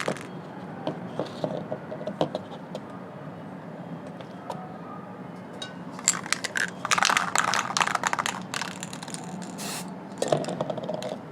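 Aerosol spray paint can handled with scattered clicks, then shaken hard for a couple of seconds from about six seconds in, its mixing ball rattling, with a short hiss of spray near the end.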